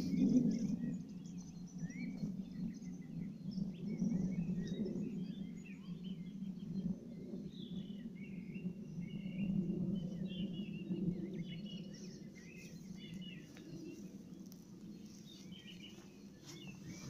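Small birds chirping and twittering in short, repeated calls over a steady low outdoor rush.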